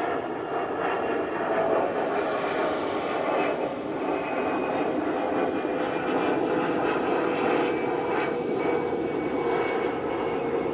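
Airplane passing overhead: a steady engine drone with a slowly falling tone near the end.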